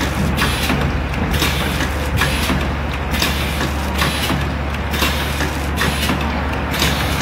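Automatic vertical liquid packing machine running through its cycles: a steady low motor hum, with a short hiss about once a second.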